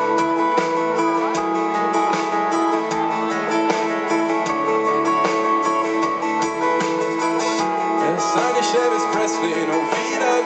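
Pop-rock band playing live in an instrumental passage without vocals, with strummed acoustic guitar to the fore over a steady beat.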